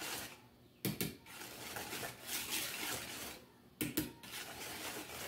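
Wire whisk stirring thick barbecue sauce in a mixing bowl: swishing strokes with short pauses, and two quick pairs of sharp taps of the whisk against the bowl, about a second in and again near four seconds in.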